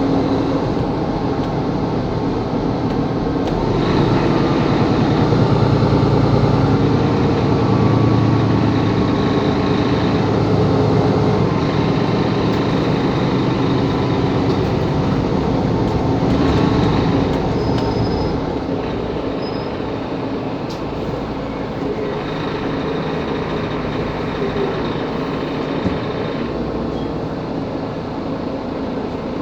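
Mercedes-Benz Capacity L city bus running, its engine working harder from about four seconds in, then easing to a quieter steady run after about seventeen seconds.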